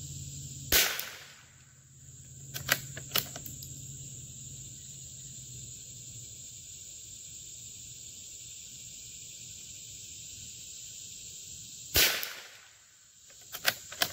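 Two shots from a Howa M1100 bolt-action .22 LR rifle, about eleven seconds apart, each with a short ring-off. A few sharp clicks of the bolt being worked follow each shot.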